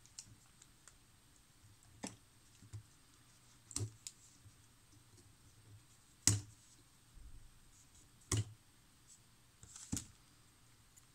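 Scattered sharp clicks and taps of a small metal tool and a circuit board against a model locomotive's plastic and metal chassis as the DCC-ready board is worked off the motor. About six clicks, a second or two apart, the loudest about six seconds in.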